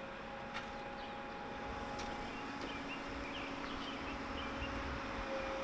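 Outdoor background sound: a steady low hum carrying a few faint held tones, with a few faint bird chirps.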